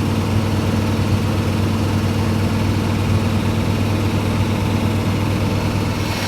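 1971 Ford F250's V8 engine idling steadily, running on fuel poured down the carburettor while the fuel pump tries to prime from the tank.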